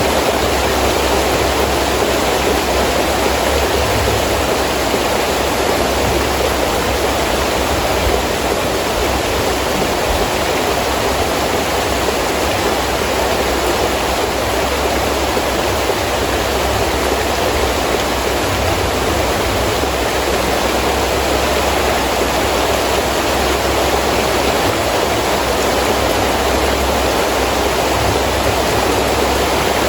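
Heavy rain falling steadily with wind: a constant, even hiss with a low rumble underneath and no single drops or claps standing out.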